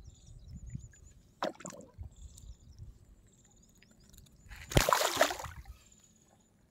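Catfish being released into shallow pond water, splashing: a small splash about a second and a half in, then a louder splash about five seconds in as the fish swims off.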